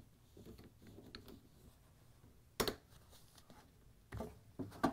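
Pliers squeezing and sliding a wire spring hose clamp along a washer drain hose at the pump outlet. Quiet handling sounds, one sharp click about two and a half seconds in, then a few softer knocks near the end.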